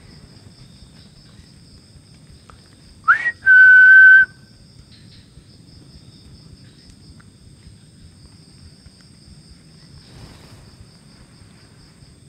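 A person whistles once, loud and close: a quick upward swoop, then a single steady note held for under a second, about three seconds in, sent out as a call to draw an answering whistle.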